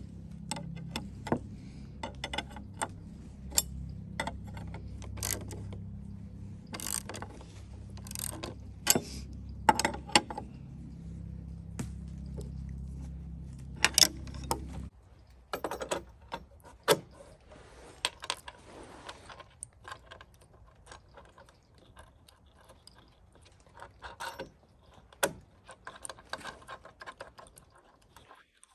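Small metal hardware clinking and clicking, irregular, as bolts, nuts, washers and brackets are handled and fitted during assembly. A steady low hum runs under the first half and stops abruptly about halfway through.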